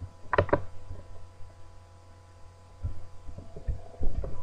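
Computer mouse button clicked twice in quick succession about half a second in, with a few softer knocks near the end, over a steady electrical hum.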